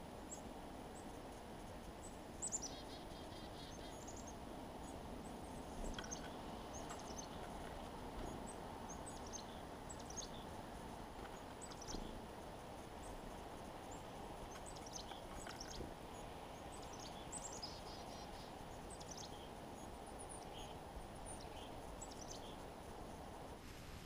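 Chickadees calling: many short, high chirps and call notes on and off, over a steady low background hiss, with a few faint knocks.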